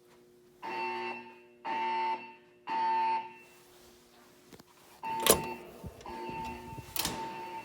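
Siemens MXL-V fire alarm speakers sounding the temporal-three evacuation tone: three short beeps, a pause, then the next set of three beginning about five seconds in, fainter. Two sharp pops break into the second set, the first one the loudest sound here.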